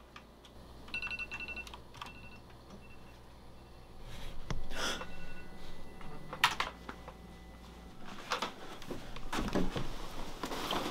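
Computer keyboard clicking with short repeated electronic beeps, then a few louder swishes and sharp thumps of quick movement in the second half.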